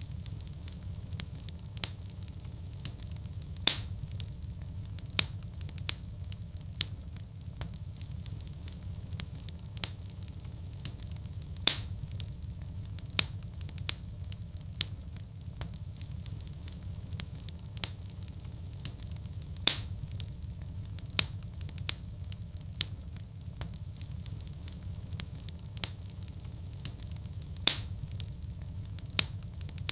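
Fire burning in a fireplace: a steady low rumble of flames with frequent small crackles and sharper pops, the loudest pops coming about every eight seconds.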